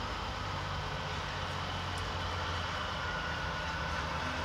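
Steady low hum of an idling truck engine heard from inside the truck cab.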